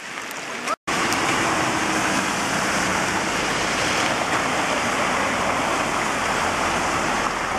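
Muddy floodwater rushing fast along a flooded street, a loud, steady, even rush that comes in suddenly after a brief gap about a second in.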